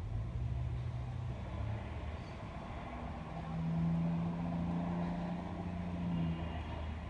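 A motor vehicle's engine running with a steady low drone; a louder, steady pitched hum joins about three seconds in and fades near the end.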